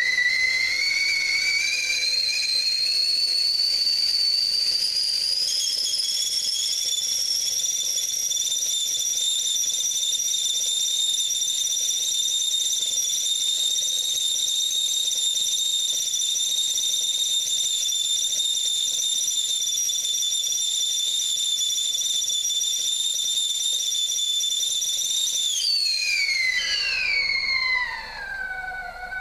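Stovetop whistling kettle at the boil: the whistle climbs in pitch over the first few seconds, then holds a steady shrill note made of several tones at once. Near the end it slides down in pitch and fades away.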